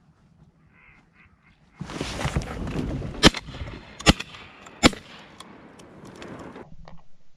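Ducks quacking and flushing in a sudden rush, with three shotgun shots in quick succession about a second apart in the middle of it.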